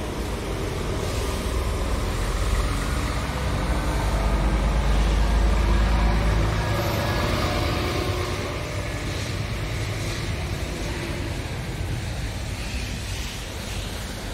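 A motor vehicle going by, growing louder to a peak about halfway through and then fading, over a low rumble of wind on the microphone.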